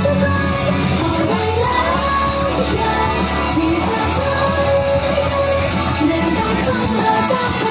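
Female pop vocals sung live into handheld microphones over loud pop backing music with a steady bass, all through a PA system.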